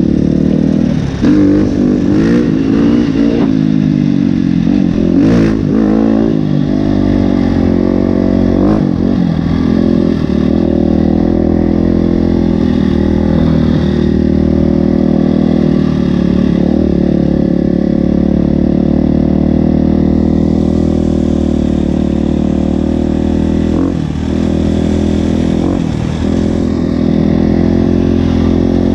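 KTM 350 EXC-F's single-cylinder four-stroke engine running, revved a few times with the pitch rising and falling in the first several seconds, then holding a steady pitch.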